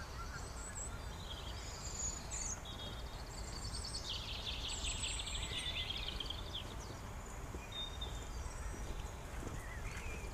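Small birds singing, with high chirps and a fast trill that is loudest midway, over a steady low rumble of outdoor noise.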